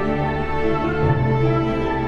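Slow background music of held notes; the notes change about a second in.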